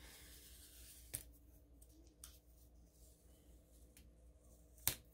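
Faint handling of paper stickers on a planner page: quiet rubbing as they are pressed and lifted, with a sharp click about a second in and a louder one near the end.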